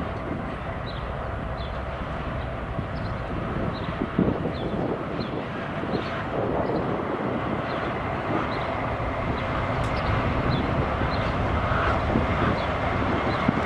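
A train running past on the track, a steady rumble of wheels on rails that slowly grows louder, with an occasional knock. A short high chirp repeats about every 0.7 s.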